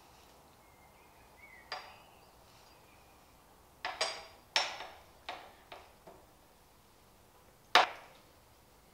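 Sharp metallic clinks and knocks as a wheel-mounting bracket and its nut and bolt are fitted by hand to a shower chair's aluminium frame: one about two seconds in, a quick cluster of five or six around the middle, and the loudest near the end.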